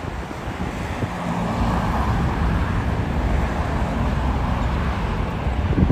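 Road traffic: a motor vehicle's engine running close by, a steady low hum that sets in about a second in, over the general noise of passing cars.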